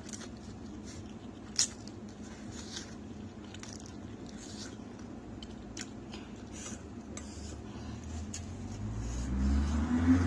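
A person eating noodles: small chewing and mouth clicks and utensils tapping a bowl, with one sharper click about a second and a half in. A low rumble builds near the end.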